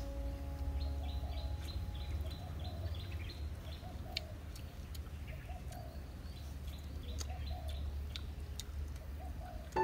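Birds chirping: a quick run of short falling chirps about a second in, then scattered calls over a low rumble.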